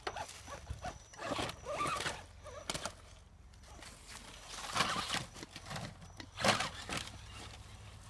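Footsteps crunching through dry fallen leaves in several irregular bursts, mixed with the knocks of a small RC rock crawler's tyres bumping down over stones.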